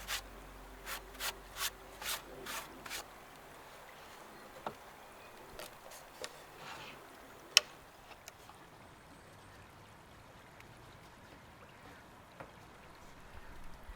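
Light, sharp wooden taps and clicks from hand woodworking: a quick run of about eight in the first three seconds, a few scattered ones after, and one louder click about seven and a half seconds in.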